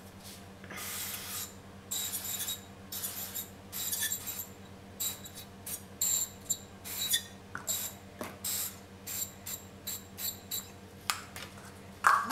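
A metal spoon stirring and scraping in a stainless steel mixing bowl, a quick irregular run of short rasping scrapes with a light metallic ring.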